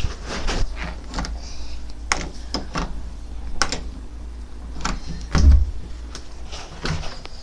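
A phone being handled right at its microphone: irregular clicks, knocks and rubbing over a low rumble, with one heavier thump about five and a half seconds in.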